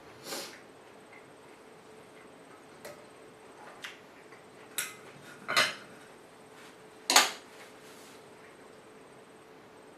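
Eating sounds: a handful of short, scattered clicks and clatters, the loudest about seven seconds in.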